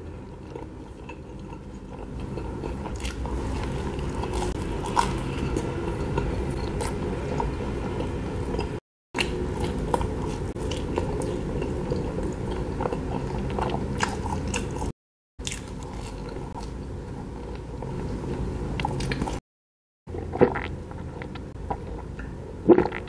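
Close-miked chewing of a bite of durian cheese pizza, with small crunches of the crust, cut off three times by brief total silences. Near the end, a few gulps of a drink from a glass jar.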